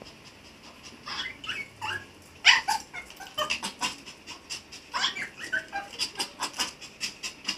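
Long-coat Chihuahua making high, monkey-like whimpering cries that rise and fall, the loudest about two and a half seconds in, then a run of short quick sounds about three a second: a nervous dog held for a vet exam.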